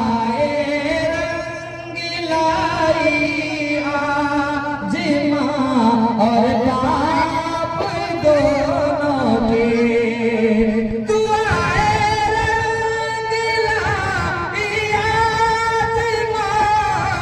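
A man sings a sehra, a wedding song, solo into a microphone. He holds long notes and bends them in ornamented melodic runs.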